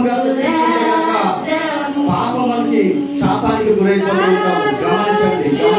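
Church congregation singing together, many voices at once with long held notes.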